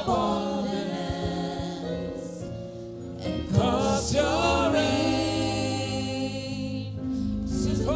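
Gospel worship song: singing with long held notes over a steady instrumental backing.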